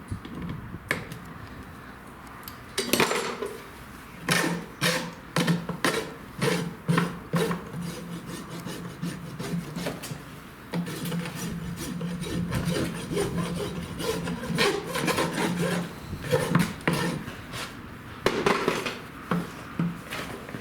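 Farrier's rasp scraping across the hoof wall in a run of uneven strokes, roughly one a second with short pauses, dressing down the nail clenches.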